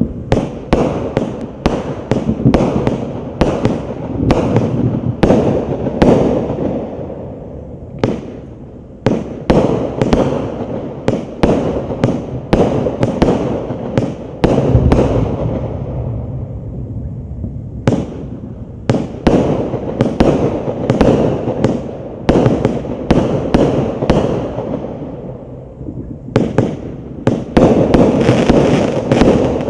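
Devil's Dynamite DD5002 'Take My Load' 49-shot fireworks cake firing: an uneven string of sharp bangs, about one to two a second, each trailing off. It slackens briefly about eight and seventeen seconds in, and the shots come thicker near the end.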